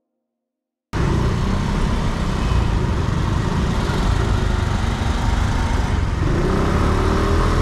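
Wind buffeting the microphone and road and engine noise from a two-wheeler riding in city traffic, cutting in abruptly about a second in after near silence. An engine note rises faintly near the end.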